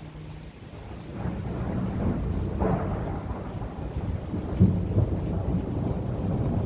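Thunder rumbling over steady rain, swelling about a second in and rolling on loudly, with a few sharper peaks within the rumble.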